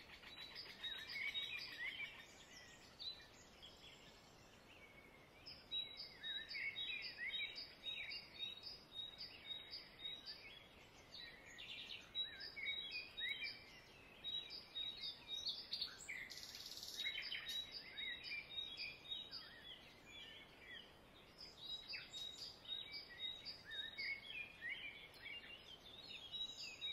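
Faint birdsong: many short chirps, with one high note repeated evenly about three times a second for much of the time.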